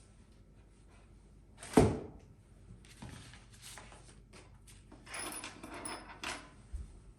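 Handling noise while unboxing: one sharp knock about two seconds in, as something hard is set down or bumps a surface, then a couple of seconds of rustling with small clicks from the packaging and accessories being handled.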